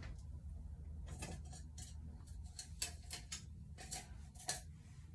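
Irregular light clicks and clacks of plastic toiletry bottles and containers being handled and set down on a wire closet shelf, over a low steady hum.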